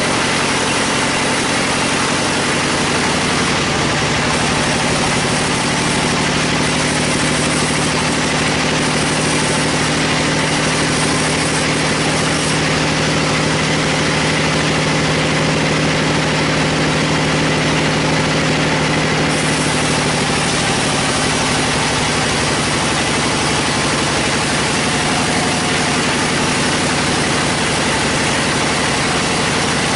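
Band sawmill running, its blade cutting through a large log with a steady machine drone. A deeper low hum comes in a few seconds in and eases off about two-thirds of the way through.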